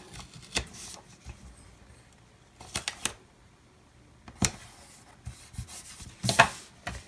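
Paper handling: a sticker pressed and rubbed onto a planner page and the loose sheets smoothed by hand, as a few short rustles and rubs, the loudest about six seconds in.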